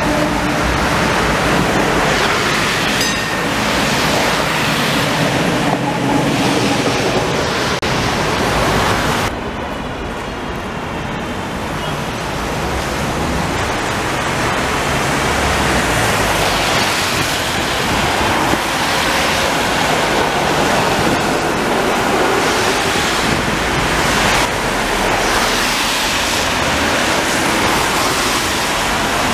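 Steady hiss of street traffic on a rain-soaked road, tyres swishing on wet asphalt, with a low hum under it for the first several seconds. The hiss dips and thins about nine seconds in, then builds again.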